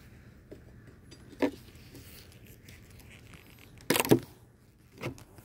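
A few short knocks and scrapes as a metal hive tool and the wooden Flow Hive super are handled. The loudest is a quick cluster of knocks about four seconds in.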